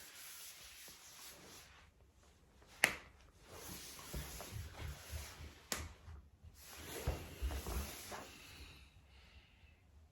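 A person cracking their own joints: a sharp pop about three seconds in, the loudest sound, another just under six seconds in and a fainter one near seven seconds, amid rustling and rubbing from body movement.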